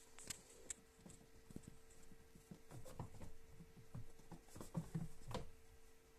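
Faint scattered clicks and soft knocks as a boa constrictor works a rat down its throat, with a cluster of louder knocks near the end, over a faint steady hum.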